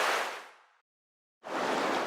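Two whoosh transition sound effects. The first fades out within the first second, and the second starts abruptly about one and a half seconds in.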